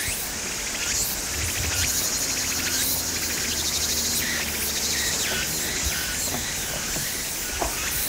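Summer forest ambience: cicadas buzzing steadily in a fast, even pulse, with birds chirping short notes over it again and again.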